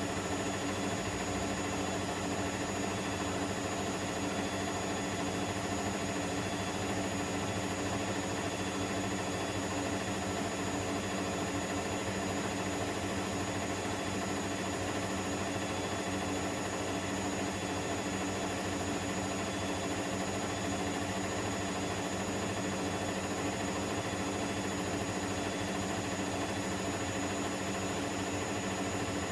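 Electrolux EWF10843 front-loading washing machine running at a steady spin, making a loud, unchanging mechanical drone with several fixed tones and a thin high whine.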